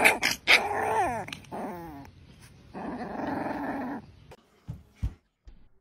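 A puppy growling in play, with a few short yelps falling in pitch between the two growls. Two short knocks come near the end.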